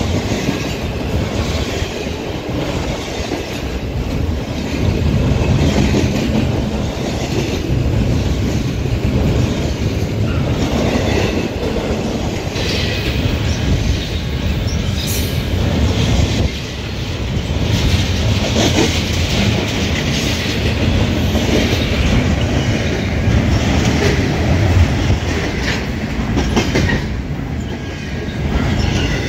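A double-stack intermodal freight train's loaded well cars rolling past close by: a steady heavy rumble with the rapid clickety-clack of wheels over the rails. The sound eases near the end as the last cars go by.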